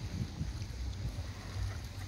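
Wind rumbling and buffeting on the microphone, an uneven low rumble with faint scattered sounds above it.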